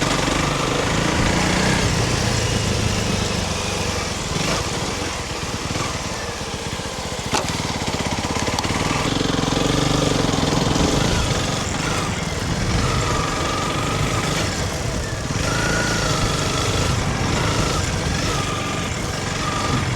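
Honda CRF300 Rally's 286 cc single-cylinder engine running as the bike is ridden along a trail, its note rising and falling with the throttle. A sharp knock about seven seconds in.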